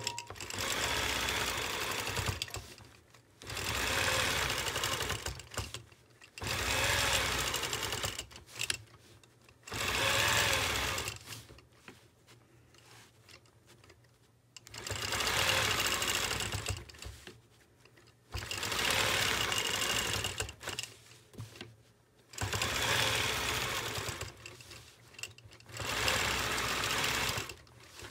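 Longarm quilting machine stitching in runs of two to three seconds, stopping and starting about eight times as each orange peel arc is sewn along an acrylic circle ruler.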